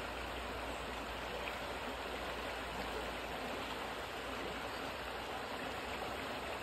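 A swollen river rushing steadily over rocks in a shallow riffle, running high after rain.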